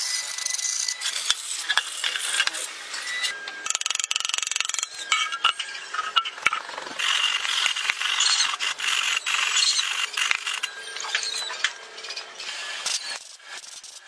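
Hand work on a cassette stove's metal parts: scraping and rasping mixed with many clicks, knocks and rattles of tools and parts, including sandpaper rubbing a metal part clamped in a vise partway through.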